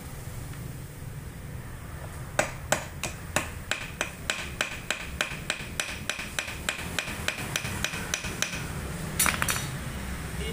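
A metal hammer striking metal in a quick, even series of ringing blows, about three a second for some six seconds, then a short cluster of knocks near the end. The work is on freeing a car engine's crankshaft pulley and its bolt.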